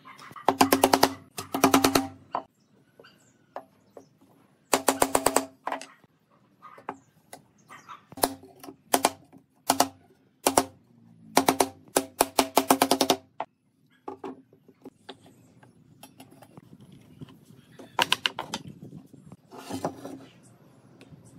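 A mallet tapping a wooden top rail down onto its dowel spindles, in irregular bursts of rapid blows, each burst ringing with the wood's pitched tone.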